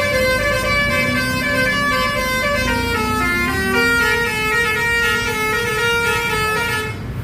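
A tourist bus's basuri 'telolet' musical horn playing a tune of stepped tones over the low rumble of the bus engine. The tune cuts off suddenly near the end.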